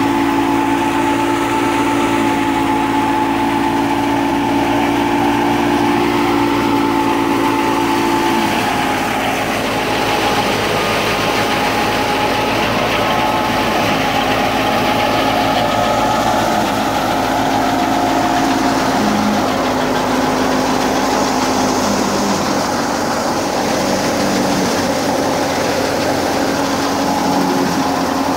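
Belt-driven wheat thresher running steadily, a continuous mechanical drone with an engine-like hum. The hum shifts lower in pitch about eight seconds in.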